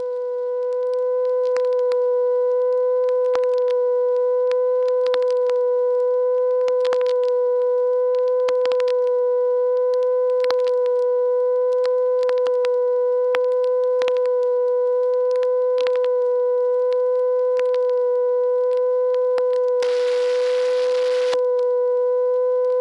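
A steady pitched tone with overtones, held unchanged, with scattered sharp clicks and a brief burst of hiss near the end.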